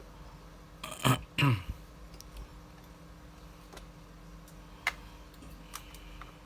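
Small handling noises from work on a camera body: two short scraping sounds with falling pitch about a second in, then a few faint clicks.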